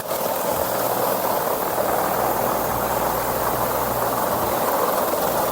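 Steady mechanical rushing and rumbling over a constant low hum, from mountain coaster cars and track machinery running.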